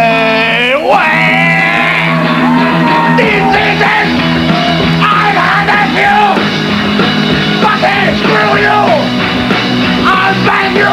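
A singer's long held note slides down and ends about a second in, then a rock band with drums and guitar plays loudly.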